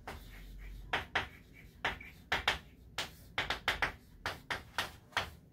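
Chalk writing on a blackboard: a string of short, irregular taps and scratches as each letter is stroked on.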